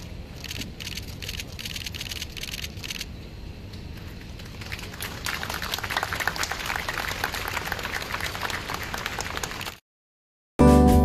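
Crowd applauding, sparse at first and growing thicker about halfway through, then cut off abruptly shortly before the end.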